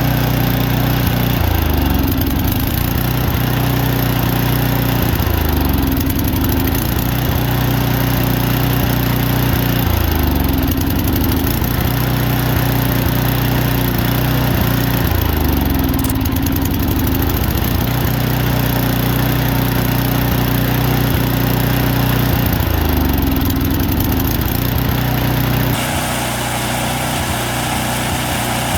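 Snowblower engine running, its speed dropping and recovering about five times as bursts of Seafoam spray are fed into the carburetor's air intake: each burst makes it bog down, then it picks back up. This is a treatment for a surging idle caused by buildup in the carburetor. Near the end it runs a little quieter and steadier.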